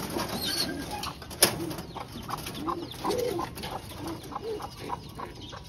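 Domestic pigeons cooing repeatedly in a loft, with a sharp click about a second and a half in and light knocks scattered throughout.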